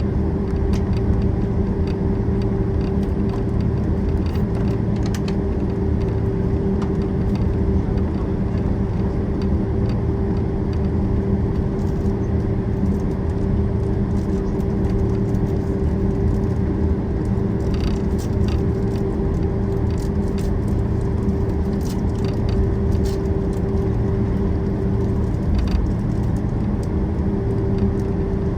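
Cabin noise inside a Boeing 767-400ER taxiing on the ground: a steady jet-engine rumble and hum with one held tone. Faint rattles of cabin fittings come now and then.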